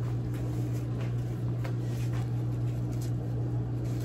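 A steady low hum, like a running appliance or electrical hum, with a few faint soft clicks from handling.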